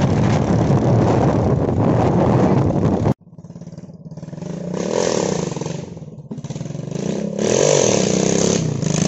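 Steady wind rush and engine drone while following a moving dirt bike, cut off abruptly; then a Yamaha dirt bike's engine approaching and revving up twice, rising in pitch each time, the second rev as it pulls a wheelie.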